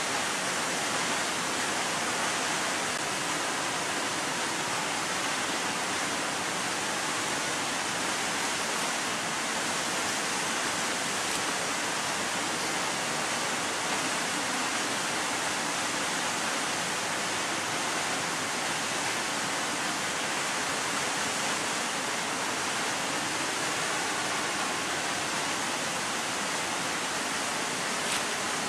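Waterfall pouring over rock ledges: a steady rushing of water that does not change.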